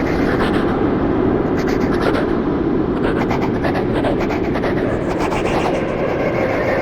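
Spooky ghost sound effect: a steady, dense rushing rumble with faint rapid crackles above it.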